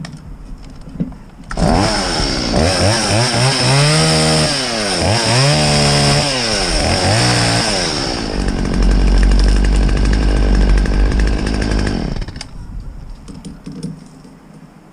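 Chainsaw starting about a second and a half in and revved up and down several times, then held running at a steady speed before cutting off near the end.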